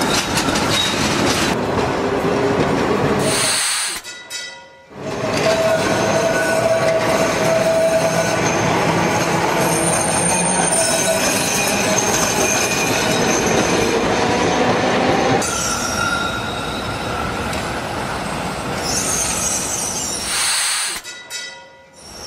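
Tram running on street rails: a steady rumble of wheels on track with thin, high wheel squeal over it. The sound dips almost to nothing twice, about four seconds in and near the end.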